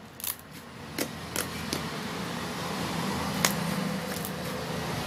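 Slime with styrofoam beads being handled, with a few sharp clicks and pops over a steady low hum that comes in about two seconds in.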